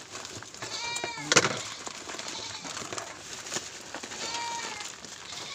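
A goat bleating twice, about a second in and again near the end, over the crackle and rustle of a plastic-and-tape-wrapped parcel being handled, with one sharp crackle just after the first bleat.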